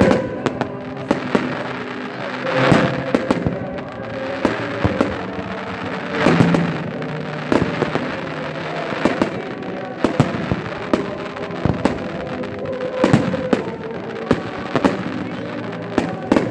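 Aerial fireworks shells bursting one after another at an irregular pace, several bangs a second at times, over music.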